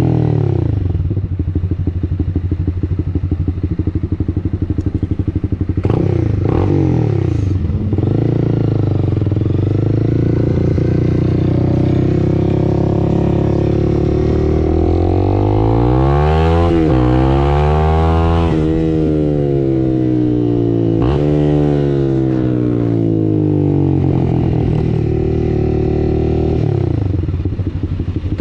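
A 2022 Honda CB300R's single-cylinder engine running through a Two Bros Hurricane slip-on exhaust, heard onboard while riding. It holds fairly steady, then about halfway through revs up hard with a sudden dip at a gear change. It climbs again and falls away, settling lower near the end.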